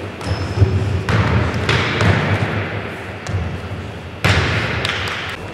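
Basketball bouncing and thudding on a hardwood gym floor, with echoing low thumps in a large hall. Two louder stretches of rushing noise come about a second in and again after four seconds.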